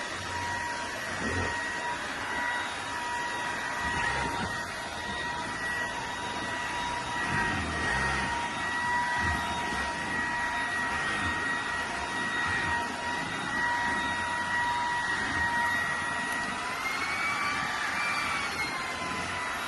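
Bissell PowerClean FurGuard cordless stick vacuum running steadily, its motor giving a whine over a rushing hiss, with irregular low bumps from the cleaning head. Near the end the whine rises in pitch for a moment, dips, and rises again.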